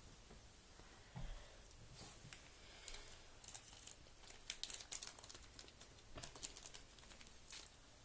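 Faint crinkling and clicking of a small clear plastic zip bag being handled, in a scatter of short crackles that cluster in the second half, with a soft thump about a second in.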